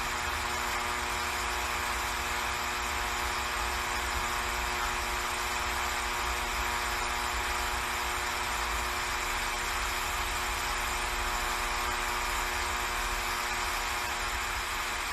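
Steady electrical buzz with hiss, even and unchanging.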